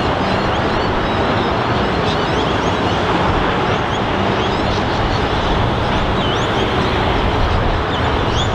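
Container freight train's wagons rolling steadily across a rail bridge, a continuous rumble and clatter of wheels, with birds chirping now and then.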